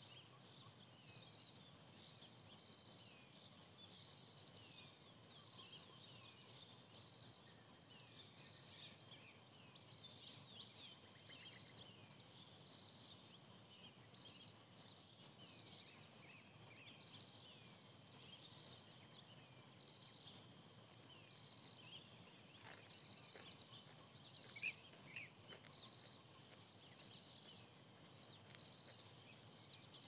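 Forest ambience: a steady, high-pitched insect drone with many short, falling bird chirps over it, and two louder chirps late on.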